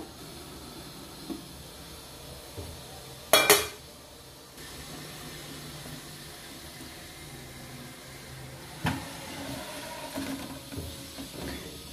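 A stainless-steel lidded bowl clanking against the steel idli cooker as it is lowered into the simmering water. There is one loud metallic clang about three and a half seconds in and a lighter knock near nine seconds, over the steady hiss of the simmering cooker.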